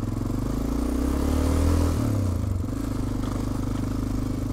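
Honda Dominator 650's single-cylinder engine running while riding. The engine note rises about a second in, drops back near the middle, then holds steady.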